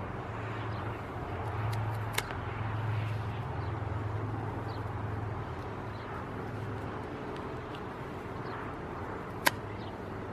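Plain-edged Buck pocket knife cutting through a piece of rope, a faint scraping over a steady low hum of background noise, with two sharp clicks, one about two seconds in and one near the end.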